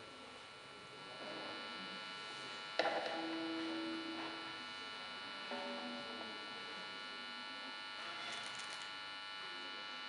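Electric guitar amplifier humming and buzzing steadily. About three seconds in a single guitar note is picked and rings for about a second and a half, and another brief note sounds about five and a half seconds in.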